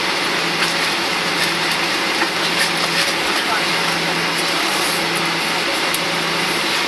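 Steady cabin noise inside a Boeing 737-800 rolling along the runway after landing: a even rushing hiss with a steady low hum from its CFM56 engines and air system.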